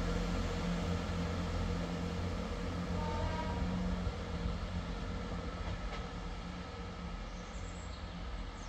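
Diesel train's engines running with a steady low drone that slowly fades, with a faint high squeal near the end.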